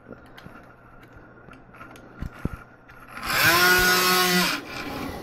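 Fan trainer's propeller fan speeding up into a loud, steady whir with a clear pitch about three seconds in, holding for about a second and a half, then dropping back. The arm is being swung quickly by hand, and the derivative-only controller drives the fan hard against that fast motion. Before it there is a faint low hum and a few light clicks.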